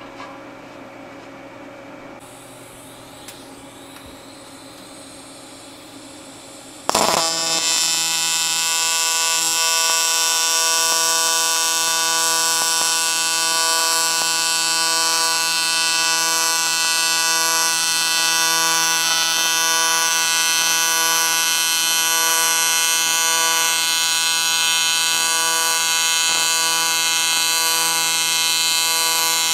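AC TIG welding arc on aluminium, welding a 6061 bung onto a cast aluminium intercooler. After a quieter stretch the arc strikes suddenly about seven seconds in, then buzzes loudly and steadily.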